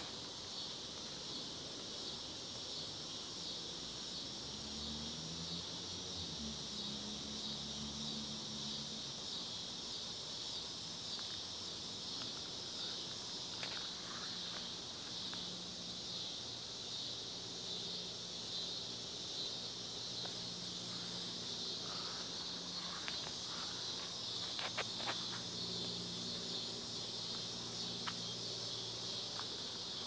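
Steady chorus of insects, a continuous high-pitched trill that never lets up, over a faint low hum, with a few soft clicks about halfway through and again later.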